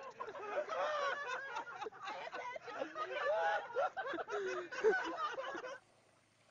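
Several people's voices laughing and shrieking over one another, cutting off abruptly near the end.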